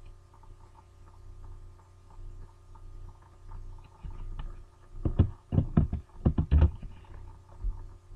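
A quick run of about half a dozen sharp clicks from computer controls, between about five and seven seconds in, over a steady mains hum.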